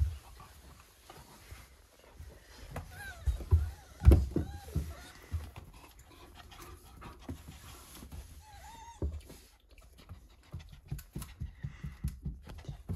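A puppy and a young fox play-fighting: panting and scuffling, with knocks of bodies against the floor (the loudest about four seconds in) and a few short, high whines. The knocking grows busier near the end.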